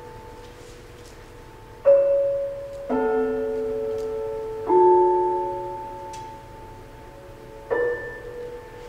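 Sparse, slow piano music: four struck notes and chords with a bell-like ring, several seconds apart, each left to sustain and fade away.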